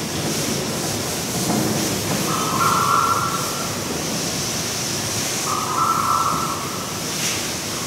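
Chalk scratching on a blackboard as a hand writes, over a steady hiss of room noise. Two longer scraping strokes come, one a little over two seconds in and one about five and a half seconds in.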